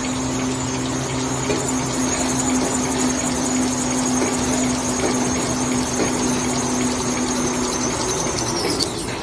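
2600 mm kitchen towel rewinding machine running: a steady mechanical rush with a high whine and a low hum. Near the end the hum stops and the whine drops in pitch.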